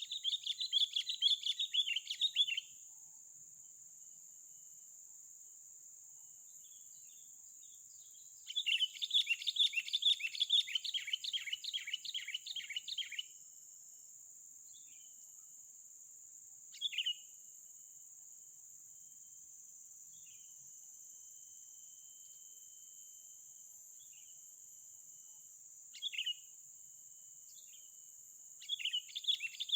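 A bird calls in bursts of rapid, chattering notes lasting several seconds each, with single short calls between the bursts. A steady high-pitched insect drone runs underneath.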